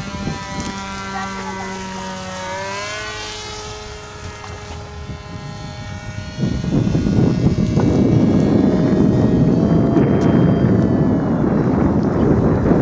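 Radio-controlled model plane's motor and propeller whining overhead, the pitch stepping up a few seconds in. About halfway through a louder rushing noise sets in and covers it.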